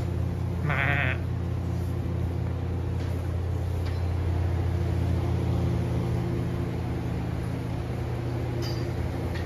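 Boer goat bleating once about a second in, a short wavering call, over a steady low hum.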